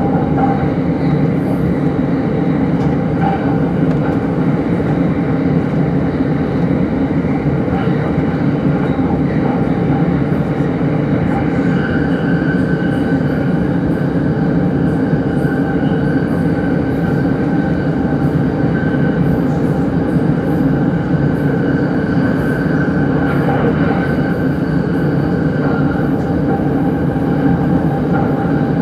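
Utsunomiya Line commuter train running at speed, heard from inside the passenger car: a steady loud rumble, joined about twelve seconds in by a high steady whine that carries on.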